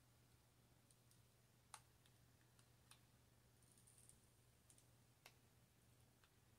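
Near silence with a few faint, short clicks and ticks as a cured epoxy resin snowflake is peeled out of its flexible silicone mold. The loudest click comes a little under two seconds in, over a steady low hum.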